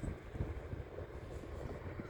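Wind buffeting the microphone aboard a boat at sea, an uneven low rumble with a faint steady hum above it.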